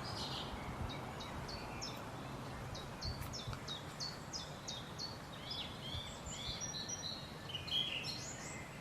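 Birds singing against a steady background hiss. A series of short, high cheeps about three a second gives way after about four seconds to more varied, warbled phrases. The recordist takes the repeated cheeping for a chaffinch and the singer for a thrush, possibly a mistle thrush.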